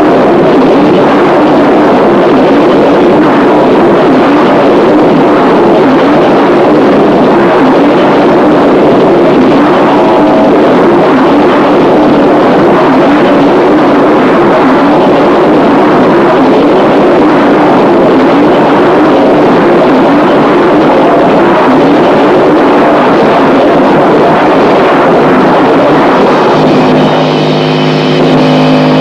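Harsh noise music: a loud, dense wall of distorted noise that churns on without a break. Near the end a few steady held tones come in over it.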